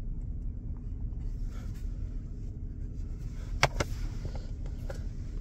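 Steady low hum inside a pickup truck's cab, with one sharp click a little past halfway and a few faint ticks as plastic discs are handled.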